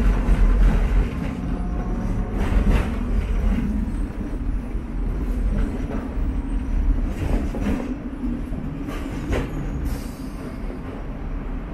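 Hong Kong double-decker electric tram running with a steady low rumble, and a few sharp clacks as its wheels pass over rail joints.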